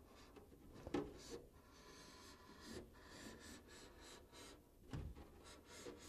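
Faint, irregular scratching of a hand scoring tool's blade drawn along a clear polycarbonate RC truck body, scoring a cut line into the plastic.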